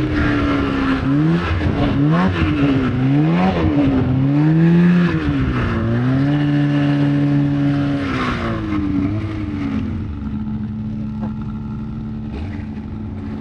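Polaris RMK 700 snowmobile's two-stroke engine revving up and down several times, its pitch rising and falling, then holding steady before easing off to lower, quieter running about ten seconds in.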